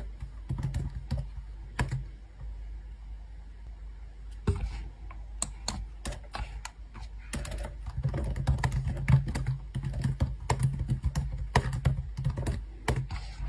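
Typing on a laptop keyboard: quick, irregular key clicks, over a low steady hum.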